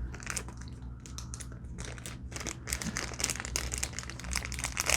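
Plastic packaging crinkling and rustling as it is handled, in many short crackles and clicks that grow busier in the second half.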